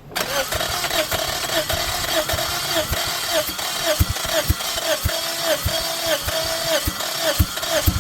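Toyota engine, damaged by airsoft BBs sucked into its intake, running unevenly with a pulsing beat about two to three times a second. It starts abruptly at the very start.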